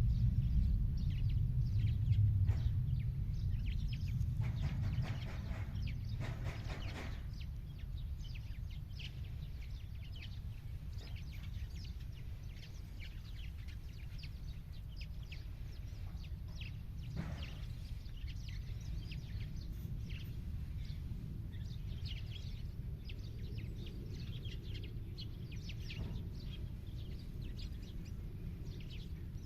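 Small songbirds chirping and calling over and over, with a longer, rougher call about five seconds in. Under them runs a low rumble, louder in the first few seconds.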